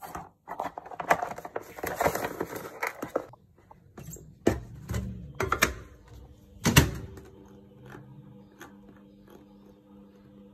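Kitchen clatter of a dish and utensils being handled, then three sharp knocks, the last the loudest, like a microwave oven door being shut. A steady microwave oven hum starts right after and runs on.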